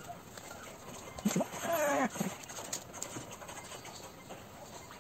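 An animal's drawn-out cry about a second long, starting about a second in, rising and then falling in pitch with a wavering quaver.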